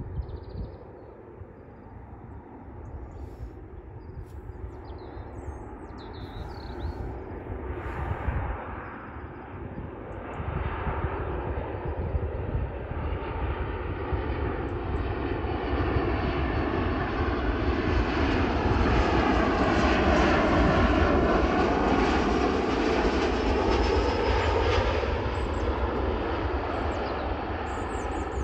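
Ryanair Boeing 737 MAX 8-200 jet airliner on landing approach, its CFM LEAP-1B turbofan engines making a rumble that swells steadily as it nears. It is loudest about two-thirds of the way through, where a tone sweeps down and back up as it passes closest, then eases slightly. Birds chirp faintly at the start.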